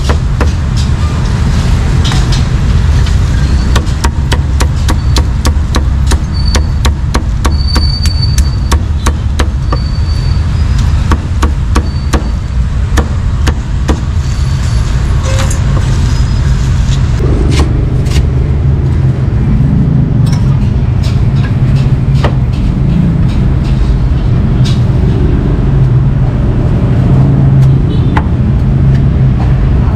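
Cleaver chopping meat on a wooden block: quick, even strokes of about three a second, thinning to scattered chops about halfway through. A steady rumble of street traffic runs underneath.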